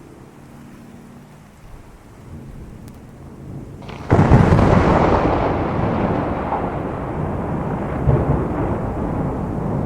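Thunder from a close lightning strike: a sudden, very loud crack about four seconds in, rolling into a long rumble that slowly fades, over steady heavy rain.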